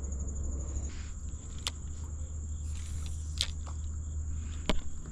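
Steady high-pitched buzz of insects calling along the riverbank, with about three sharp clicks or knocks of gear on the kayak in the second half.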